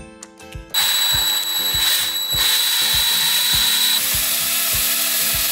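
DeWalt 20V cordless drill starting up about a second in and running steadily, driving a whisk attachment through butter, sugar and flour in a glass mixing bowl. A high motor whine sits over the noise until about four seconds in.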